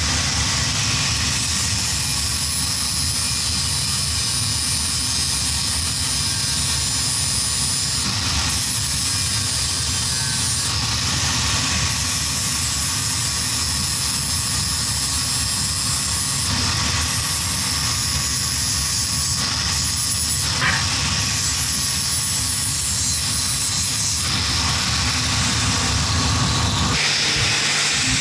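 Angle grinder running continuously against a metal tube loop, grinding it: a steady high whine over dense grinding noise, dipping briefly now and then.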